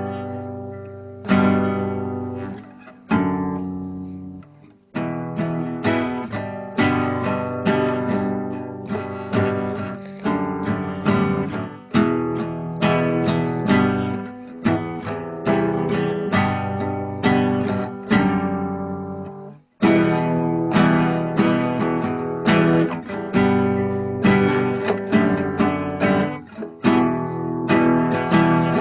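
Acoustic guitar strummed in chords, each struck chord ringing and fading before the next, with a brief break about two-thirds of the way through. No singing.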